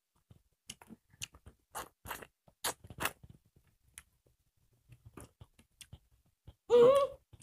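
Close-up mukbang eating sounds: people chewing rice and sukuti (dried buffalo meat) with potato curry eaten by hand, heard as irregular short clicks, smacks and crunches. A brief loud voice sound breaks in near the end.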